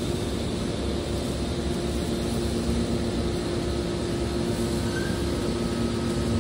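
Hydraulic scrap metal baler running: a steady machine drone with a low, even hum from its hydraulic power unit.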